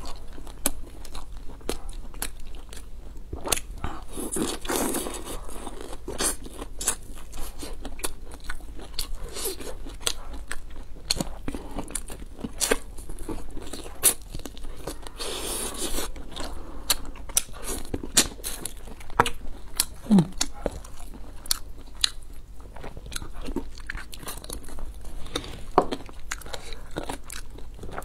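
Close-miked eating sounds: a person chewing and biting a soft steamed bun and pieces of stewed pork, with many sharp wet mouth clicks and smacks and a few longer, breathier mouth noises about 5 and 16 seconds in.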